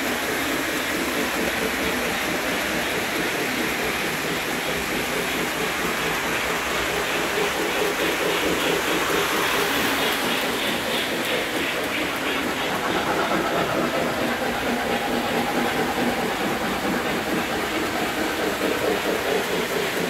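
Several Lionel model trains running on the layout at once: a steady mix of motor hum and wheels on the track, with a quick run of regular clicks about halfway through.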